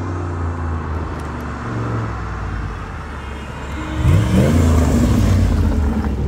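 A 1994 Pontiac Trans Am's engine running as the car approaches. About four seconds in the engine note rises sharply as it accelerates, and it gets louder.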